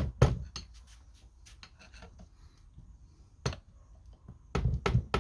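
Gentle taps on a screwdriver used as a drift to drive the motor core out of a Tongsheng TSDZ2 mid-drive motor casing: a couple of sharp taps at the start, a single tap about three and a half seconds in, and a quick run of taps near the end, with light handling clicks in between.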